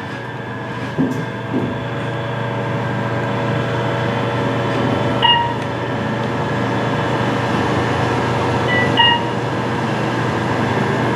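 Otis Gen2 machine-roomless elevator car travelling upward: a steady motor-and-ride hum with a few light knocks near the start, and short electronic chimes about five seconds in and again about nine seconds in.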